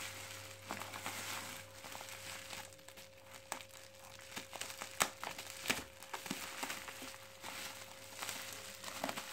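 Scissors cutting through a plastic mailer bag wrapped in packing tape: the plastic crinkles and rustles, with sharp snips and clicks scattered throughout.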